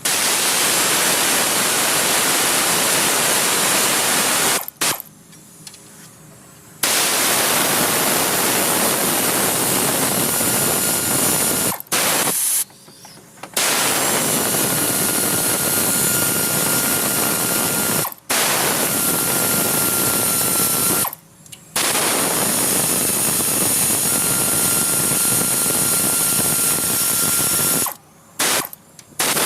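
Pneumatic air tool running in long bursts of several seconds, with short pauses between them.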